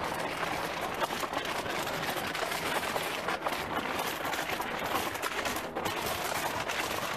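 Footsteps and rustling handling noise of someone walking with a handheld camera across an asphalt lot, heard as a steady dense crackling hiss with many small clicks.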